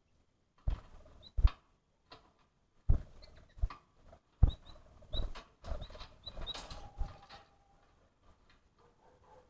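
A small animal moving about, with irregular knocks and thumps and short high squeaks, several of them close together about six seconds in. It goes quieter for the last two seconds.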